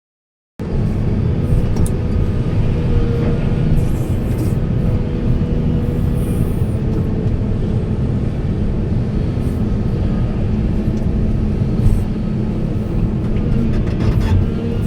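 Diesel engine of a large excavator running steadily under work, a loud low rumble with a steady hum, with a few light metallic clicks and clanks.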